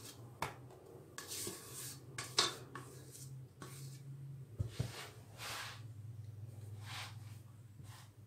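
Soft scraping and rubbing as a spatula spreads whipped cream over a sponge cake layer, with a dull low knock a little past halfway as a large stainless steel pot is set down on a woven trivet. A steady low hum runs underneath.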